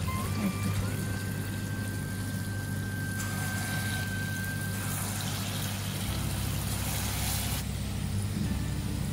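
Palm-fruit batter fritters (taler bora) sizzling steadily as they deep-fry in hot oil, over a steady low hum. The hiss grows louder for a couple of seconds about halfway through.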